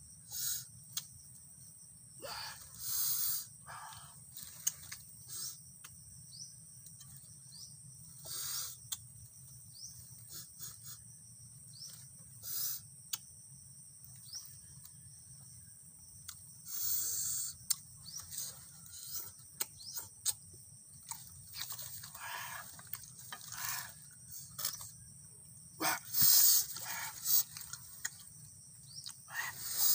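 A person eating by hand: chewing and mouth noises in short, scattered bursts every few seconds, with small clicks between them.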